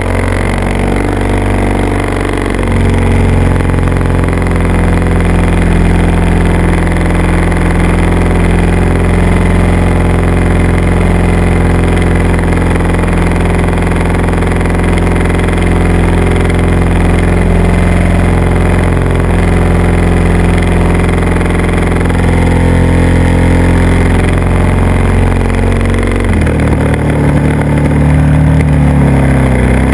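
Engine of the aircraft carrying the camera, running steadily and loud; its pitch changes about 2.5 s in and again about 26.5 s in.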